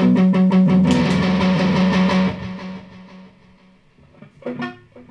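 Electric guitar played through a Boss Katana 100 MK2 amplifier: quickly repeated picked notes, then a chord about a second in that rings on and fades away over the next two seconds, with a couple of quiet notes near the end.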